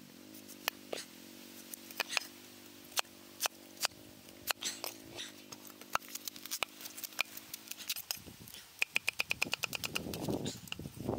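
Cleaver chopping vegetables on a thick wooden chopping block: scattered single cuts, then a quick run of rapid chops near the end. A faint low steady hum sits under the first part.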